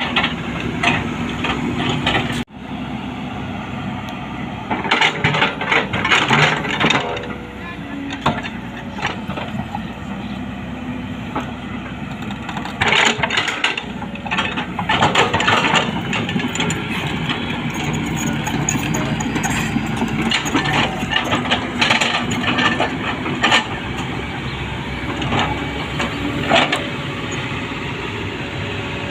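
JCB 3DX backhoe loader's diesel engine running steadily under load, with repeated bursts of clattering and scraping as the bucket works the mud.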